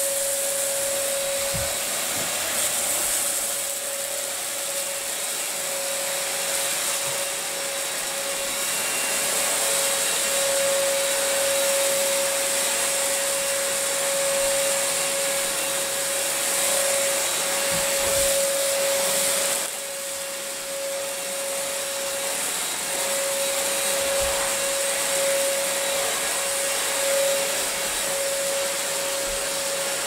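BlitzWolf BW-AR182 cordless stick vacuum running on a carpet: a steady motor whine over the rush of airflow, briefly dipping about two-thirds of the way through.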